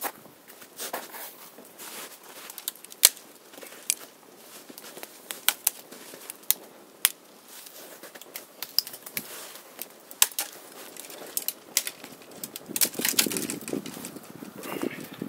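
Small twig fire burning and crackling, with irregular sharp pops and snaps, busier and louder near the end.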